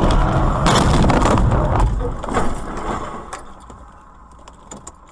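A car crashing into the side of a minibus, heard from inside the car: a loud crunching impact with rattling about a second in. The noise then dies away over a couple of seconds, with a few scattered clicks near the end.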